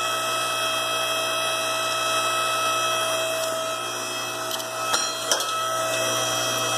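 A small electric motor running steadily with an even whine, with two short clicks about five seconds in.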